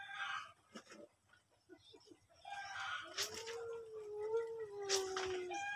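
A single long animal call, held for nearly three seconds from about three seconds in, its pitch rising slightly and then falling away, with a few faint clicks and knocks before it.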